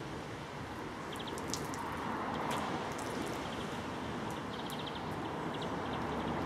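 Steady outdoor background rush that grows slightly louder, with scattered short high chirps of small birds, some in quick runs of three or four.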